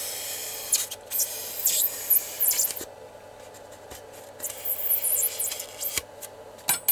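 A knife blade cutting and scraping through rigid foam along a milled groove, freeing a tailplane core: scratchy strokes in two spells, with a quieter pause of about a second and a half between them. A short sharp click comes near the end.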